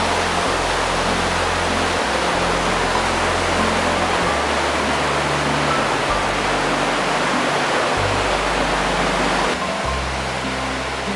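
Rushing river water, a steady loud hiss that eases slightly near the end, under background music with low held notes changing every second or two.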